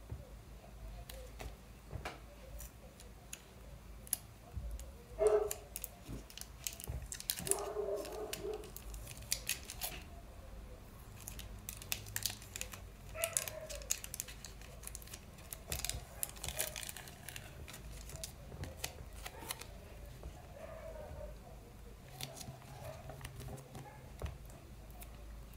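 Handmade paper sticker being handled: paper and tape rustling and crinkling as it is unwrapped, peeled and pressed onto a grid-paper page, in short scattered bursts.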